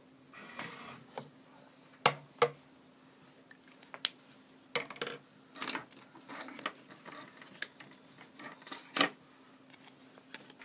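Drawing tools handled on a desk: a short scratchy rub of pen or steel rule on paper in the first second, then a run of sharp clicks and knocks as the rule is put down and moved. Two knocks come close together about two seconds in, and the loudest comes near the end.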